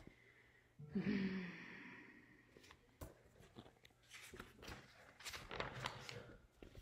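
A voiced sigh about a second in, falling in pitch and fading out, followed by faint paper rustling and soft clicks as picture-book pages are turned.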